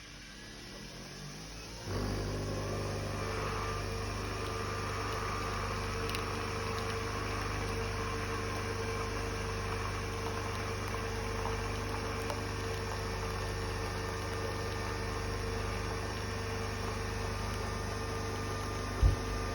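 Nespresso capsule machine's pump running with a steady hum as it brews, starting suddenly about two seconds in. A short, loud low thump comes near the end.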